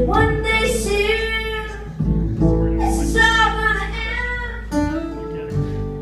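Live band music: a woman singing over upright double bass and guitar, in sung phrases with short breaks between them.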